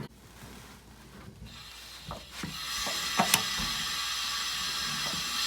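A valve being turned back on in a cabin's water system: a few clicks and knocks from the handle, then a steady hiss of water and air rushing through the pipe that starts about three seconds in.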